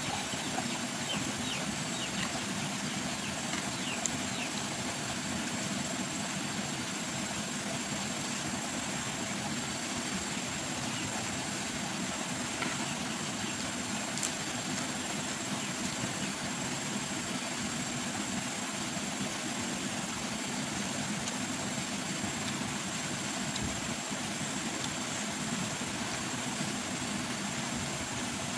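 Steady low hum of background noise with a faint, thin high tone held over it and an occasional faint click.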